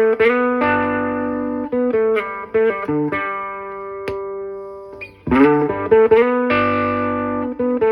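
Electric guitar played through a boost pedal on its middle gain setting, into a solid-state Fender Studio 85 amplifier: ringing chords and short single-note runs, the same phrase played twice, starting again about five seconds in.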